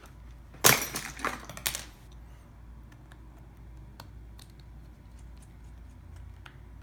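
A quick cluster of clicks and clatters from small hard tools and phone parts being handled on a work surface, the loudest a little under a second in, followed by a few faint isolated ticks.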